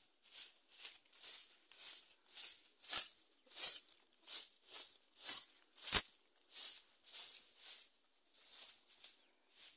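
A bundle broom of thin dry stems sweeping bare earth in brisk, even swishing strokes, nearly two a second.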